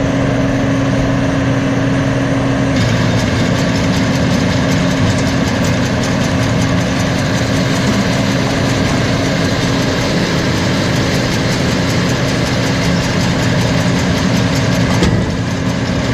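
An engine running at a steady speed, a constant low hum with no revving.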